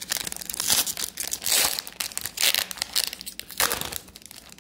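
Foil wrapper of an Upper Deck hockey card pack crinkling and tearing as it is ripped open by hand, the crackling dying down near the end.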